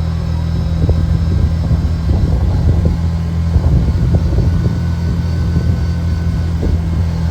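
Vehicle engine running at a steady speed, with scattered knocks and rattles over it.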